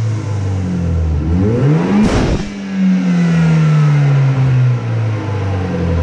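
A BMW 114i's turbocharged N13 four-cylinder, fitted with a straight-pipe exhaust, is blipped from idle. The revs climb about a second in. A Turbosmart Kompact dual-port blow-off valve lets out a sharp whoosh as the throttle closes just after two seconds. The revs then sink slowly back toward idle.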